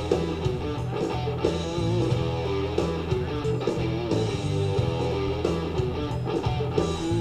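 Rock music with guitar over a steady bass line, played through an air-show public-address loudspeaker.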